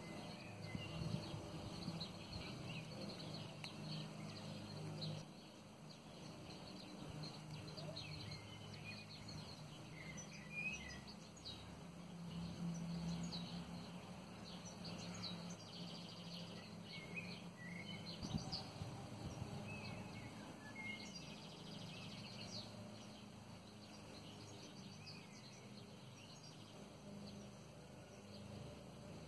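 Quiet outdoor background with scattered bird chirps over a low steady hum. Faint light clinks come from small steel chainmail rings being handled.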